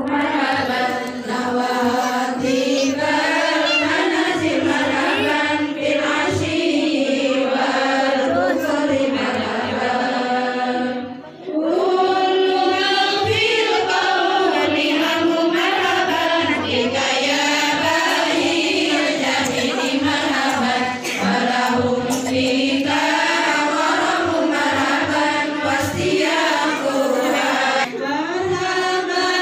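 A group of women chanting devotional Maulid verses in praise of the Prophet together in unison, a melodic sung recitation read from booklets. There is a short break between lines about eleven seconds in.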